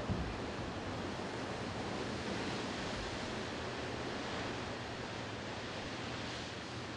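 Ocean surf washing steadily, with wind on the microphone, an even hiss with no distinct events.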